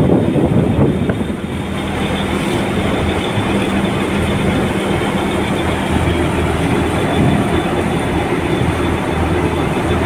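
Heavy marine diesel engines running with a steady low drone, mixed with rushing water alongside the hull.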